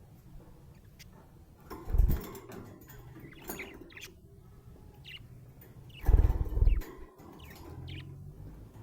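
Budgerigars chirping in short, scattered, high calls. Loud low thuds about two seconds in and again around six seconds in.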